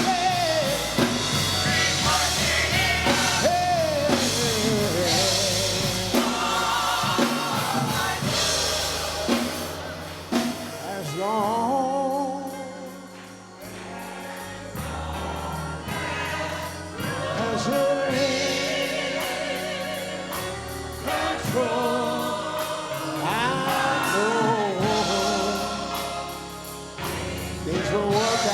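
Gospel choir singing with band accompaniment and a steady bass line; the music drops quieter for a few seconds about halfway, then swells back up.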